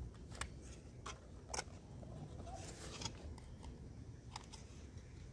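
Scissor tips piercing holes in the side of a thin plastic coffee cup: about five short, sharp clicks and crackles of the plastic, spread over a few seconds, with a brief scraping hiss in the middle.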